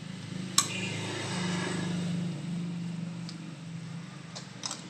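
Plastic parts of a copier's toner hopper unit being handled and opened: one sharp snap about half a second in, a couple of lighter clicks near the end, and a low hum underneath that swells and then fades.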